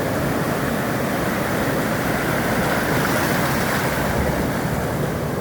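Ocean surf: a steady wash of waves, swelling a little about three seconds in.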